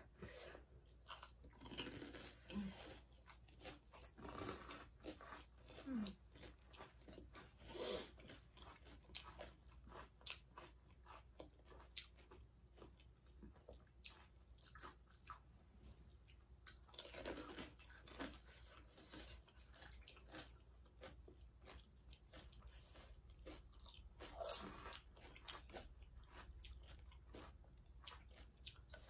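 Pani puri being eaten: crisp fried puri shells crunching as they are bitten and chewed. There are many small crunches and a few louder bites spread through.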